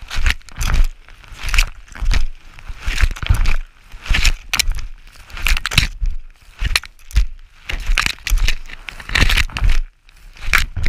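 Wind buffeting the microphone of a harness-mounted camera on a paraglider in flight, coming in irregular loud bursts about twice a second.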